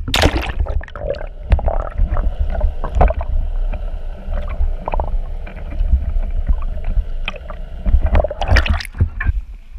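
Action camera pushed underwater from a boat: a splash as it goes in, then muffled gurgling and water rushing over the camera housing, with scattered knocks and another burst of splashing about eight seconds in.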